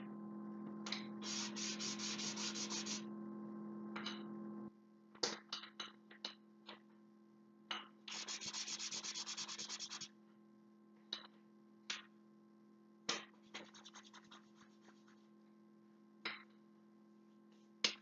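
Soft pastel chalk scrubbed against tinted card in rapid back-and-forth strokes, colouring in stripes: two bursts, about a second in and about eight seconds in, each lasting about two seconds. Between them, scattered light taps and clicks.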